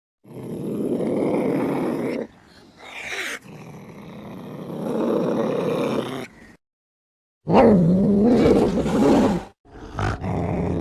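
Cat growling and yowling in about five separate calls, each cut off suddenly into silence. One call shortly after the middle wavers up and down in pitch.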